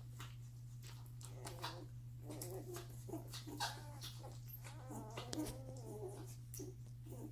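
One-week-old Doberman puppies squeaking and whimpering in short bursts, heaviest about a third of the way in and again near the end, among many short wet clicks from nursing. A steady low hum runs underneath.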